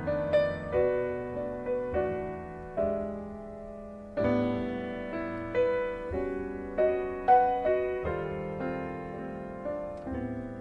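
Background piano music: slow, gentle notes struck one after another, each ringing and fading before the next.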